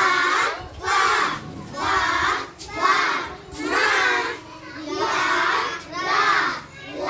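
A group of young children chanting together in unison in a steady rhythm, one loud phrase about every second.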